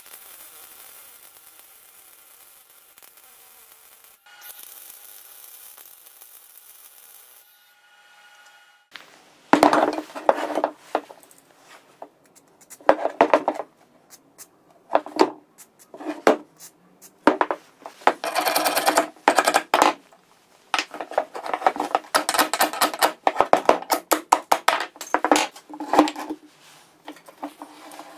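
A grinder working steadily on a steel shock absorber clamped in a vise for the first several seconds. Then metal shock absorbers are handled on a wooden bench: knocks and rubbing, an aerosol can spraying lubricant for about a second and a half near the middle, and a run of quick scraping and rubbing sounds.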